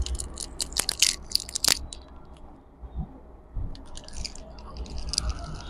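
Crackling, crinkling clicks as a smartphone battery and its packing are pried and handled to work it loose. The sound comes in two spells, one at the start and one about four seconds in, with a short lull between.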